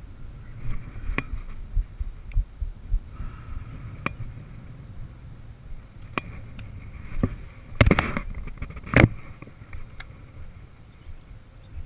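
Baitcasting reel being cranked and handled, with scattered clicks and knocks of the rod and reel close to the microphone and two loud knocks about eight and nine seconds in, over a low rumble.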